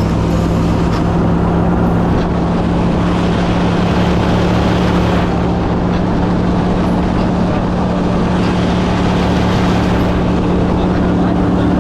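Gator-Tail surface-drive mud motor on a small boat, running steadily at an even pitch.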